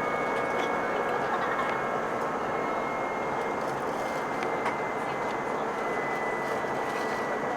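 Airbus A320 cabin noise in flight: a steady engine and airflow rush, with a faint high whine that slowly drops in pitch.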